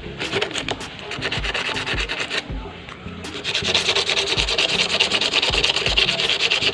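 Hand sanding of rusty metal on an old Swiss Army knife: quick back-and-forth rubbing strokes for about two seconds, then after a short break a louder, steadier scraping rub, with faint background music underneath.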